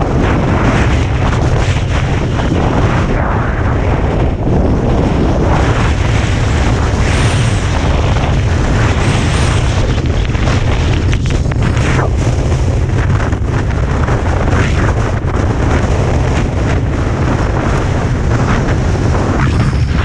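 Strong wind buffeting a skier's camera microphone, a loud, steady rumble, with the hiss and scrape of skis sliding over snow coming and going with the turns.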